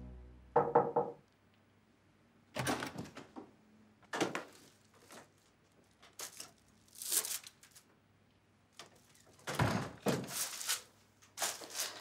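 Knocks and thuds at a wooden bedroom door, then the door opening, heard as a few separate short sounds spread over several seconds.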